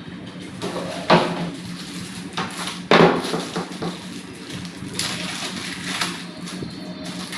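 Clear plastic bag crinkling and rustling, with a few sharp handling knocks, as a laptop charger adapter and its cable are pulled out of the wrapping; the loudest knock comes about three seconds in.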